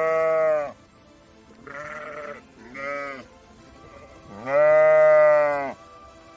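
Sheep bleating four times: a loud call at the start, two shorter, softer ones in the middle, and a longer, loudest bleat near the end.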